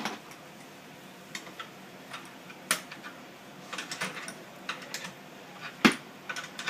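Irregular clicks and light taps of metal hardware as the nut on the workstation's mounting post is tightened down, with one louder knock about six seconds in.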